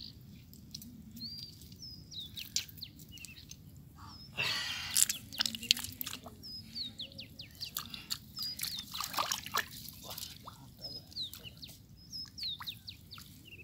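Hands squelching and splashing in wet mud and shallow water while groping in a fish hole, with a louder splash about four and a half seconds in. Small birds chirp repeatedly throughout.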